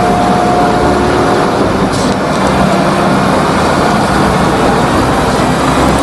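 Concrete mixer truck's heavy diesel engine running as the truck drives past, a loud, steady rumble with a low engine hum.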